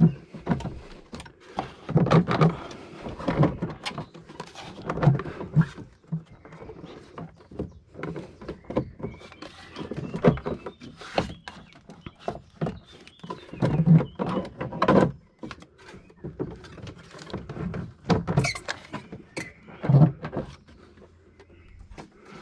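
A Toyota GR Yaris's plastic air-filter box and rubber intake hose being handled and worked into place: irregular plastic knocks, clicks and scraping.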